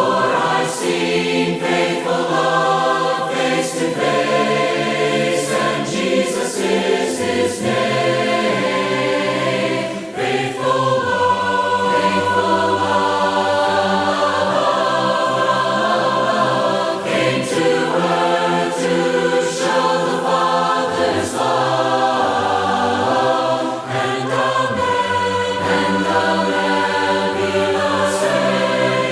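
A choir singing a hymn in sustained, multi-part harmony.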